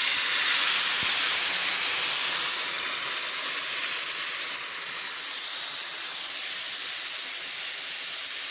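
Yogurt-marinated chicken pieces sizzling in hot cooking oil in a frying pan: a loud, steady hiss that eases slightly as it goes on.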